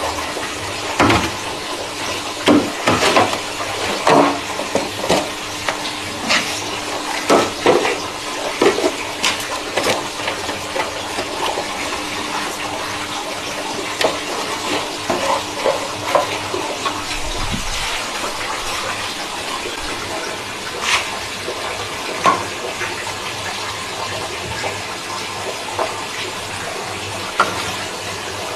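Water running or spraying steadily, with scattered knocks and clatter, most of them in the first half, and a faint steady hum that stops partway through.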